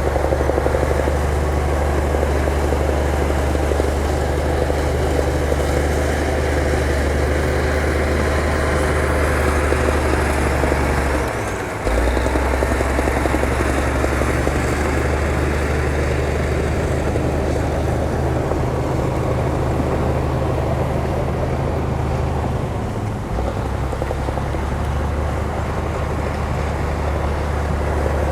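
Bulldozer's diesel engine running steadily with a deep, throbbing drone. It dips briefly about eleven seconds in and again near the end.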